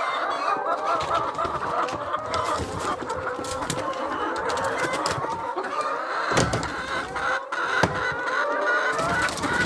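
A flock of laying hens clucking continuously, many birds calling over one another. A couple of short knocks are heard about six and a half and eight seconds in.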